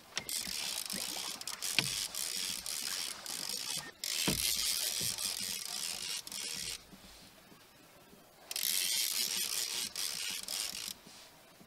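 Overhead fishing reel being cranked to wind in a hooked brown trout, a clicking, whirring winding noise. It goes in three spells, with a short break about four seconds in and a longer pause of a second or two after about seven seconds.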